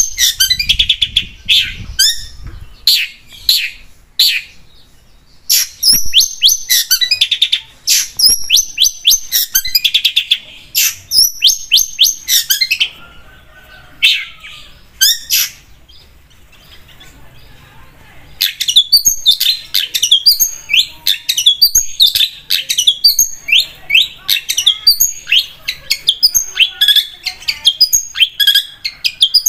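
Long-tailed shrike (cendet) singing: loud, rapid runs of sharp chirps and trills. About halfway through it drops to softer twittering for several seconds, then resumes in a dense, fast burst.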